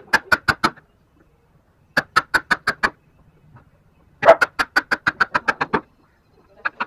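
Wood chisel driven by a mallet into a wooden block: quick, sharp knocks about six a second, in three bursts separated by short pauses, plus two more knocks near the end.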